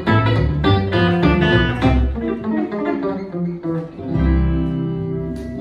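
Live hollow-body electric guitar through a small amp and a plucked upright double bass playing together. A run of picked guitar notes over a walking bass line gives way, about four seconds in, to a held low bass note and a guitar chord left ringing.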